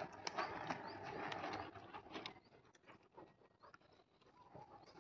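Hooves of a trotting horse thudding on the soft dirt of a riding arena, with birds chirping. A rushing noise in the first two seconds is louder than the hooves, then fades.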